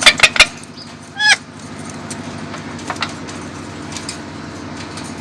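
Pet parrot giving three sharp, quick squawks, then a short chirping call about a second later, with a couple of faint taps after. A steady low hum runs underneath.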